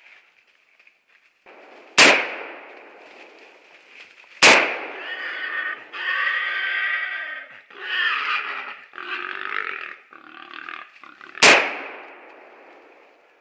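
Three gunshots from a hunting shotgun, the first two about two and a half seconds apart and the third some seven seconds later, each ringing off briefly. Between the second and third shots, a pitched, drawn-out animal cry comes in several broken stretches.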